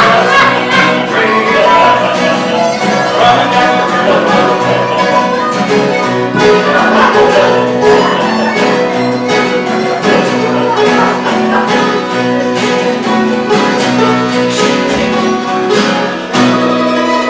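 Live acoustic folk instrumental: a strummed acoustic guitar and a harmonica with another string instrument, played to a steady rhythm, closing on a held chord near the end.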